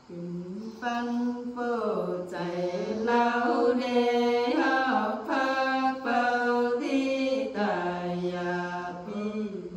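Unaccompanied female Nùng folk singing, in long held notes that slide and waver between pitches, with short breaths between phrases.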